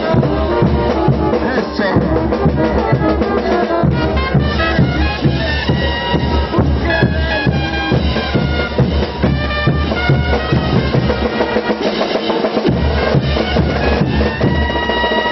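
Festival dance band music: wind instruments playing a melody over a steady drum beat.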